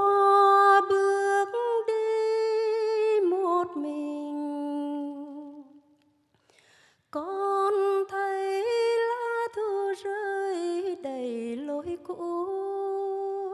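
A slow, wordless sung melody in long held notes with a slight waver. It breaks off for about a second around six seconds in, then resumes.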